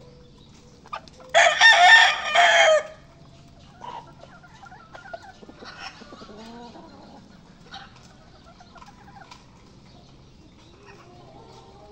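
A gamecock crows once, loud, about a second in, the crow lasting about a second and a half. After it come faint clucks and small clicks from the fowl pecking grain.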